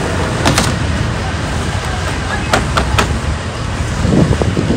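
Steady low rumble of road traffic and outdoor wind noise, broken by a few sharp knocks about half a second in and again around two and a half and three seconds in; voices come in near the end.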